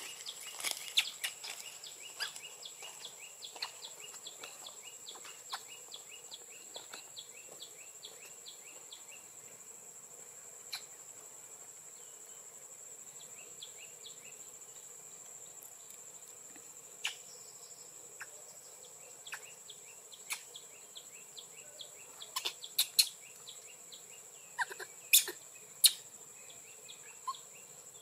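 Insects keep up a steady high-pitched drone. A run of quick, repeated short chirps sounds over roughly the first third, and scattered sharp clicks and ticks come through later on.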